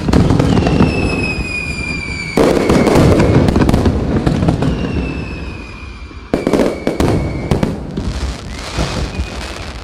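Fireworks display: rapid bangs and pops going off in dense volleys, growing sharply louder about two and a half and six seconds in. Twice a high whistle slowly falls in pitch over the bangs.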